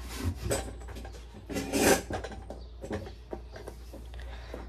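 Small metal and plastic parts from a cordless drill being dropped into a bucket: a few light knocks, then a short clatter about two seconds in.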